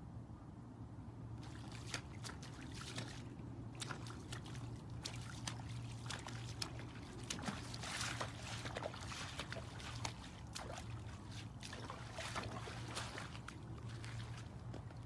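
A horse pawing at a shallow puddle with a front hoof, splashing water in quick, irregular strokes that start about a second and a half in.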